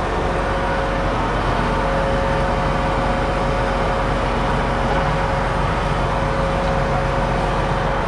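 John Deere 8260R's 9.0-litre six-cylinder PowerTech diesel idling steadily, heard close up at the rear hitch, with a constant whine over the engine note.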